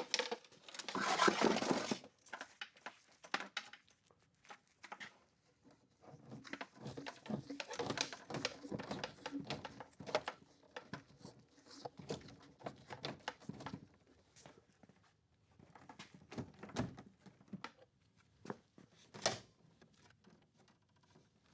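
Hands working wires into an inverter's terminals: a burst of rustling at the start, then scattered clicks and small knocks, with one sharp click near the end.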